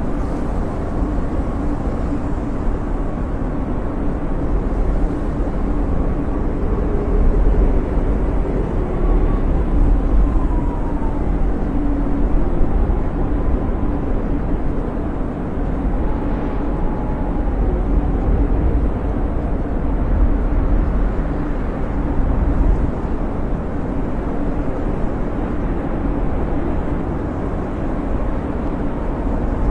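Blizzard wind blowing in a steady, deep rush, with a faint whistling howl that wavers up and down in pitch.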